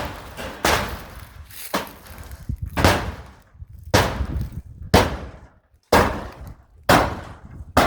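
Repeated heavy strikes on the barn structure during demolition, about one a second, each a sharp crack that dies away quickly, like hammer blows knocking the framing loose.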